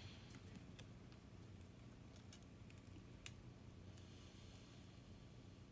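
Near silence: a faint steady room hum with a few scattered light clicks, the loudest a little over three seconds in.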